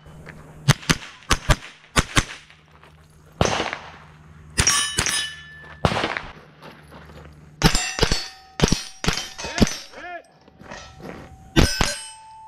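Semi-automatic rifle shots at steel plates, each hit answered by a ringing clang from the steel. The shots come in quick strings of two to four with short pauses between them.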